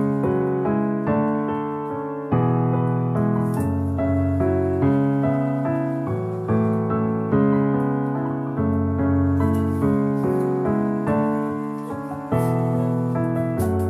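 Background piano music: chords and a melody, each note struck and left to fade.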